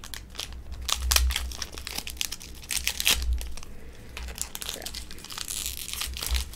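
Foil wrapper of a Pokémon TCG Burning Shadows booster pack crinkling and tearing as it is opened by hand, with dense crackles and low handling thumps.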